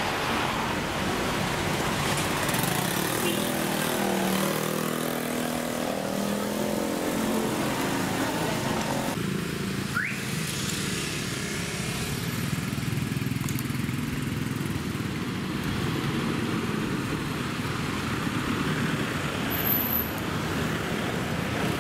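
Road traffic: cars, pickup trucks and motorbikes driving past, with one engine's hum standing out a few seconds in. A brief rising squeak comes about ten seconds in.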